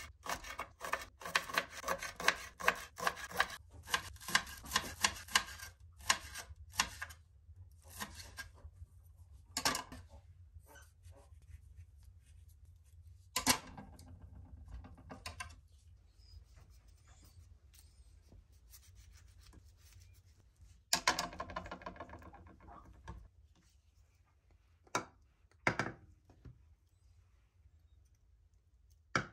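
Kitchen knife chopping green onions on a cutting board: a quick run of cuts, about four or five a second, through the first six seconds. After that come slower, scattered single cuts and scrapes against the board.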